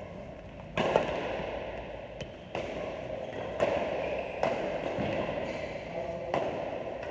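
Badminton rackets striking a shuttlecock during a rally: about six sharp smacks a second or so apart, the first about a second in being the loudest, each echoing through the hall.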